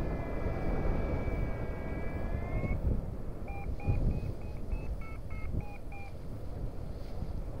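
Paraglider variometer sounding over wind noise on the microphone. It gives a steady tone for the first couple of seconds, rising slightly at its end. It then gives a run of about nine short beeps, about three a second: the climb tone that signals the glider is in rising air.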